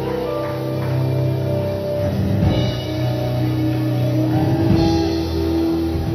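Music: long held instrumental notes that change every second or two.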